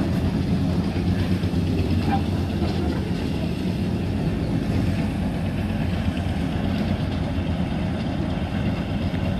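Engine of a small narrow-gauge railway vehicle idling, a steady low hum with no change in speed.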